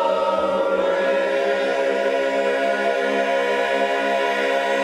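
Barbershop chorus singing a cappella, holding one long sustained chord. The chord shifts about a second in.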